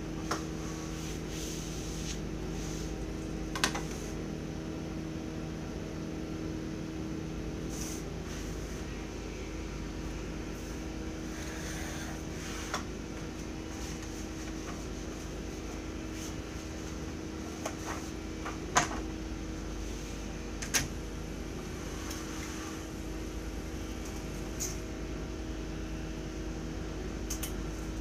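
Steady hum of a window air conditioner, with a few sharp taps and clicks as rulers and drafting tools are handled and set down on the drawing table.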